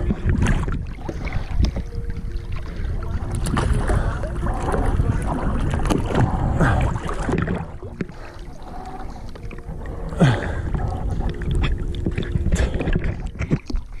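Sea water sloshing and splashing around a camera held at the waterline, in irregular bursts, with a rumble of water and wind on the microphone.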